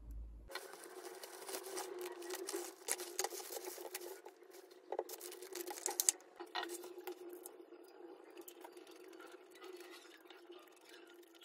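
Plastic bag and food packaging rustling and crinkling as food is unpacked onto a table, a dense run of crackles and small clicks that thins out after about six seconds, over a steady low hum.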